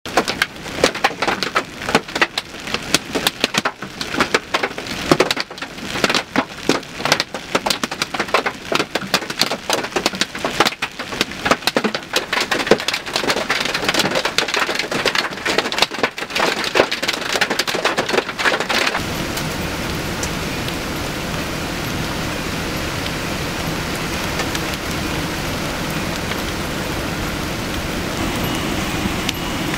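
Large hail pelting down, a dense clatter of sharp impacts. About two-thirds of the way in, it changes abruptly to a steady, even rush of noise.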